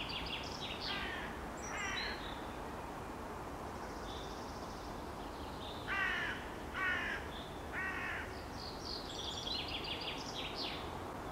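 Bird ambience: five harsh, raspy calls, two near the start and three about six to eight seconds in, over higher chirping from smaller birds and a steady hiss.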